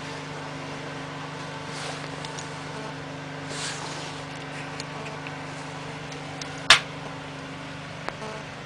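Firewood burning in the steel firebox of a Feringer Umka wood stove, its door open a crack: a steady noise of the fire with a few faint crackles and one sharp, loud pop about seven seconds in.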